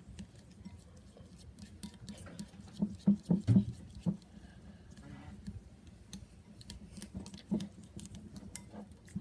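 Clear glue and pink colouring being stirred together in a bowl to make slime: irregular light clicks and taps of the utensil against the bowl, with a few louder knocks about three seconds in.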